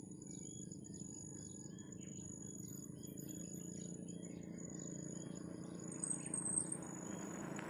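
Faint morning ambience: insects drone steadily on a high pitch while small birds chirp over and over. A couple of louder bird calls come about six seconds in, over a low steady background rumble.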